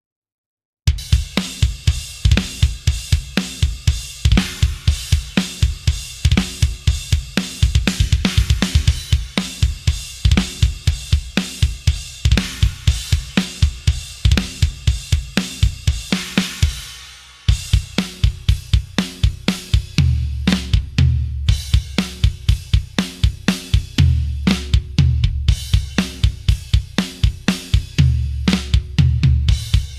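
Sampled metal drum kit from EZdrummer 3's Modern Metal EZX library playing aggressive grooves: kick, snare, hi-hat and cymbals. It starts after a second of silence, fades and restarts with a new groove about 17 seconds in, and the second groove has runs of rapid kick drum.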